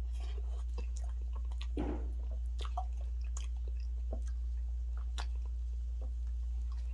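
Close-miked chewing of fufu and spicy turkey stew: scattered wet mouth clicks and smacks, with a softer, longer mouth noise about two seconds in, over a steady low hum.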